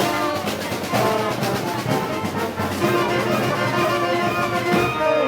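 A brass band playing festival music, the brass carrying the tune.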